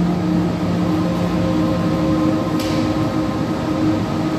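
Steady low drone of sustained tones from a projection exhibit's ambient soundtrack, with some tones fading and others coming back in, and one brief soft hiss about two and a half seconds in.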